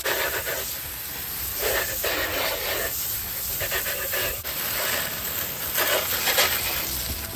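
Garden hose spray nozzle spraying water over a plastic RC truck and wet concrete: a steady hiss of spray that swells and fades several times as the jet moves over the truck's body and wheels.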